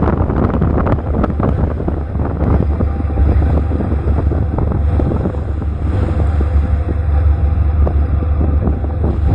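Boat engine running with a steady low rumble, with wind buffeting the microphone.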